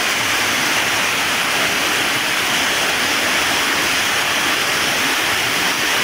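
Rocky stream rushing over small cascades and rock ledges: a steady, loud rush of water.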